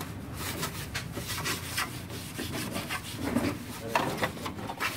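Cloth rag rubbing over the plastic top cover of an Epson LX-300+ dot matrix printer, wiping it in repeated uneven strokes.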